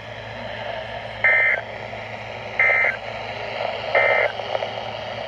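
Emergency Alert System end-of-message data bursts: three short, identical two-tone digital squawks about a second and a half apart, over steady radio hiss and hum, signalling the end of the broadcast warning.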